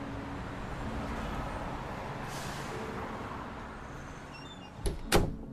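Steady low rumbling background noise with faint held tones, then two sharp knocks close together about a second before the end.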